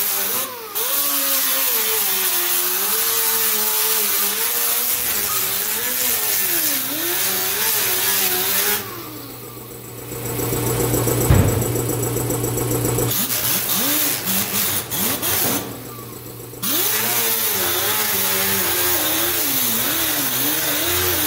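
Air-powered right-angle sander with a sanding disc grinding down welds on a steel car body seam, its pitch wavering as it loads up against the metal. It stops twice: about 9 s in, when a steady low hum with one sharp click takes over for a few seconds, and again briefly about 16 s in.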